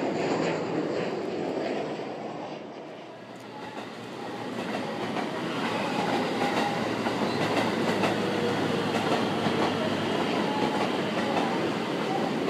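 Electric multiple-unit train moving along a station platform, its wheels clacking over rail joints over a steady running rumble. The sound dips about three seconds in and builds again as the train comes through.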